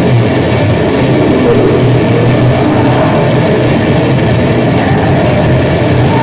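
Grindcore/noise music: a loud, dense, unbroken wall of distorted guitar and drums.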